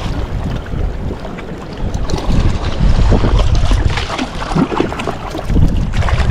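Wind buffeting the microphone in gusts, with heavy low rumbling blasts about two seconds in and again near the end.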